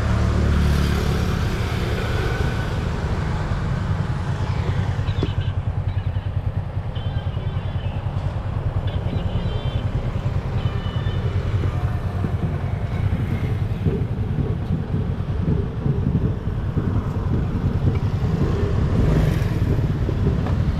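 Steady road traffic, with motorcycles and cars going by.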